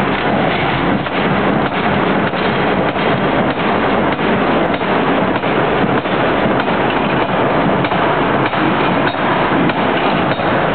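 Pneumatic forging hammer striking a red-hot bar in rapid repeated blows that blend into a loud, continuous clatter.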